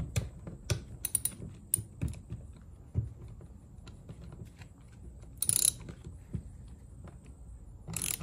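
Hand tools working screws on a car starter motor being reassembled: irregular metallic clicks and taps, with a short scraping rasp about five and a half seconds in and another near the end.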